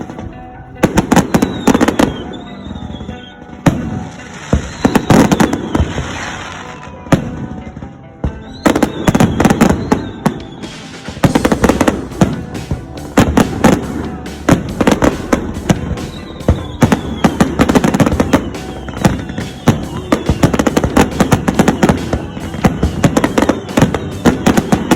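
Fireworks display: a rapid run of sharp bangs and crackle with a few whistling shells gliding in pitch, growing denser and more continuous about eleven seconds in.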